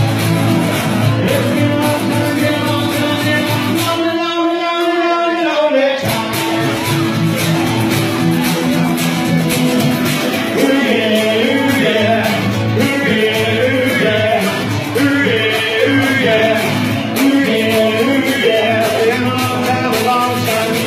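Live band playing a rock number with acoustic-electric guitar and male singing, loud and even. About four seconds in the low end drops out for about two seconds before the full band comes back, and the singing comes in strongly from about ten seconds.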